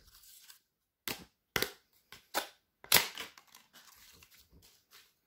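Thin white cardboard packaging being torn and pulled apart by hand: a handful of short, sharp rips in the first three seconds, then faint rustling.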